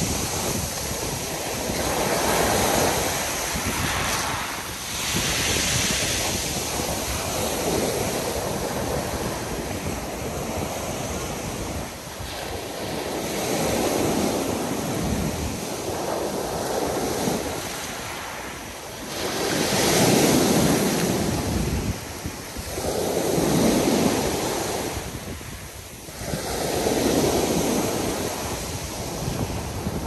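Sea surf on a pebble beach: small waves breaking and washing up the shingle, one surge every three to four seconds, the strongest about two-thirds of the way through.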